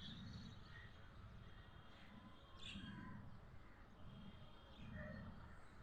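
Faint, scattered bird chirps: a few short calls here and there over a low, steady background rumble.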